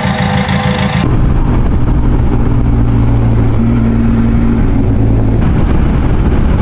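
Benelli TRK 502X parallel-twin motorcycle engine, first idling briefly, then after a sudden change about a second in, running at road speed under a steady rush of wind and road noise. The engine hum drops away about two-thirds of the way through, leaving mostly wind noise.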